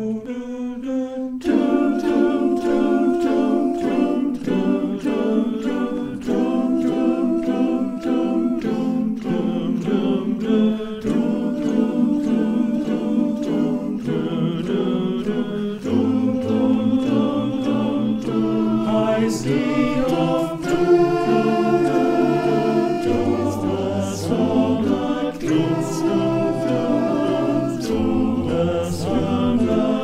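Male voice choir singing unaccompanied in sustained, slow harmony, the parts layered together from separate home recordings. The fuller sound of the choir comes in about a second and a half in.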